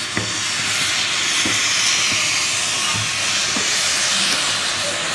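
Steam locomotive venting steam, a steady loud hiss.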